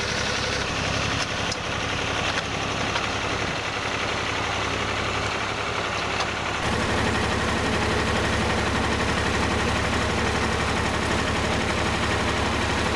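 An old tractor engine runs steadily with a quick, even firing beat as the tractor pulls away towing a caravan. The engine sound shifts abruptly about six and a half seconds in.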